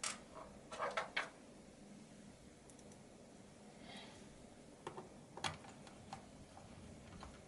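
Faint clicks and taps as small screws are put back into a laptop's plastic bottom cover with a screwdriver: a few at the start and about a second in, then scattered ones around five to six seconds in.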